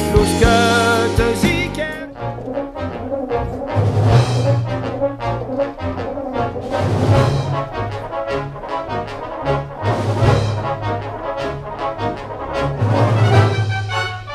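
Brass band music: brass ensemble playing, with strong low bass notes swelling and fading. For the first two seconds a different piece of music is heard before the brass music takes over.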